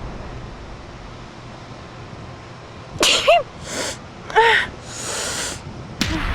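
A person sneezing twice, about a second apart, starting about halfway through. Each sneeze is a sharp pitched cry followed by a rush of breath, and the second trails off in a longer breathy blast.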